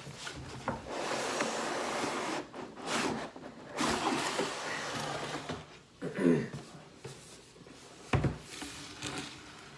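Packaging rustling and crinkling in several bursts as it is handled, with a short squeak about six seconds in and a sharp thump a little after eight seconds.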